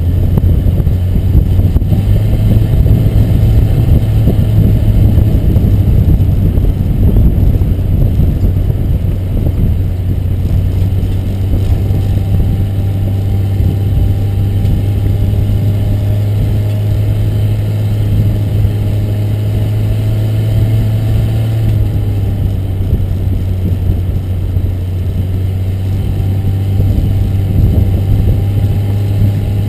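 Car running on the road with its engine and road noise: a steady low hum under a whine that rises slowly, drops suddenly about two-thirds of the way through, then rises again.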